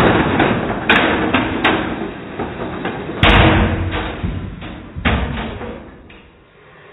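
Lionel Thomas & Friends model train cars rumbling and clattering along the track, with several sharp knocks, as the runaway trucks crash. The noise fades away over the last couple of seconds.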